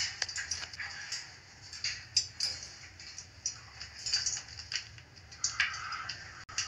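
Blue-and-gold macaw close to the microphone making soft, irregular clicks and rustles, over a steady low hum.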